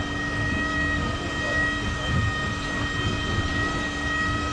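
Glass-bottom tour boat's motor running steadily under way: a constant whine over a low rumble.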